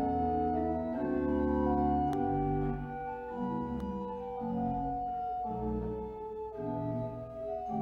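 Organ playing slow, held chords over deep bass notes, the chords changing every second or so.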